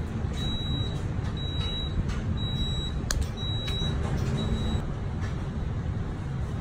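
Steady low rumble of a commercial kitchen with its extractor hood running, with a faint high beep repeating about once a second that stops about five seconds in, and a single sharp click about three seconds in.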